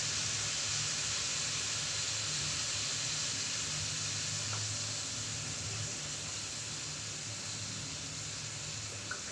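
Steady stovetop hiss with a low hum underneath from a wok cooking over a lit gas burner, and a couple of faint ticks.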